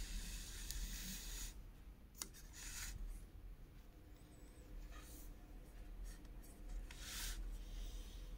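Scratchy rubbing or scraping in a few short bursts, the longest near the start, with a single sharp click about two seconds in.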